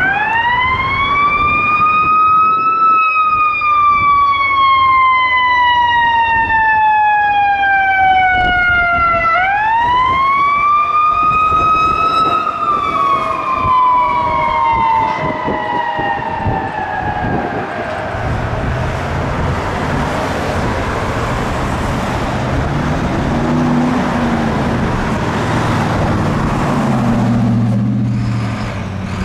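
Fire engine siren on wail: two slow rise-and-fall cycles, each climbing quickly and sliding down over several seconds, fading out about two-thirds of the way through as the truck moves off. Traffic and vehicle engine noise carry on after it.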